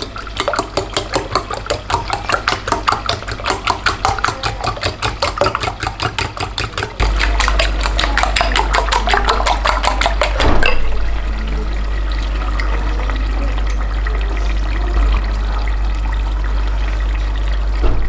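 A fork beating eggs in a ceramic bowl: rapid, even clicking of metal against the bowl that stops after about ten seconds. A steady low hum comes in about seven seconds in and carries on after the beating stops.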